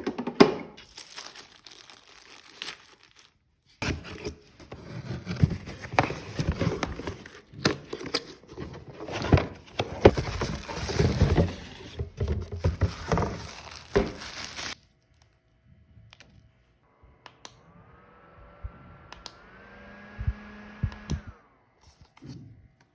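Plastic and paper packaging crinkling and rustling as it is handled, with scattered taps and knocks. After an abrupt cut, quieter taps and a short rising whine in two steps near the end.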